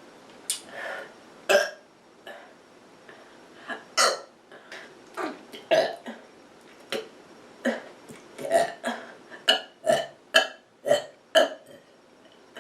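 A person burping over and over: a long string of short burps, coming closer together in the second half.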